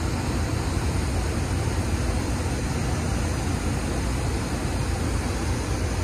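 Steady rushing hum from a standing SEPTA Silverliner IV electric railcar train, its onboard equipment running while it waits at the platform.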